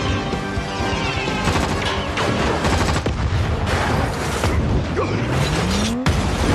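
Action-film soundtrack: a dramatic music score mixed with an explosion and bursts of gunfire, the sharp repeated cracks and booms densest in the middle, with a rising tone near the end.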